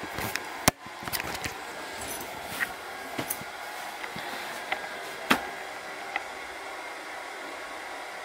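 A hair dryer running steadily in the background, with clothes rustling and a few sharp clicks and knocks as clothes are rummaged through in an open suitcase; the loudest clicks come under a second in and about five seconds in.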